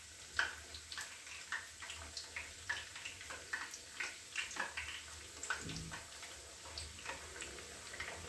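Puris deep-frying in hot oil in a kadhai on a low flame, the oil bubbling and sizzling with many irregular sharp crackles and pops. A steel slotted spoon turns the puris in the oil.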